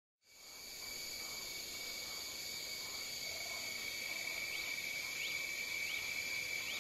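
Outdoor night ambience of insects chirring steadily in several high continuous tones, with a few short rising chirps about every half-second in the second half. It fades in at the start.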